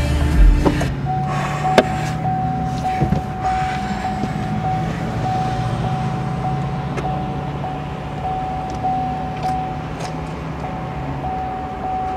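Car engine idling, heard from inside the stopped car's cabin, with a steady, unchanging electronic tone starting about a second in and sounding over it.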